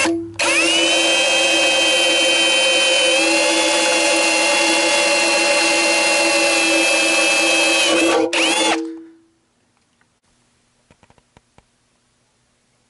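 Handheld power drill with a 1/8 inch bit drilling a hole into a metal plate. There is a short blip, then a steady whine for about eight seconds that shifts slightly in pitch about three seconds in, a brief stop, and a short final burst.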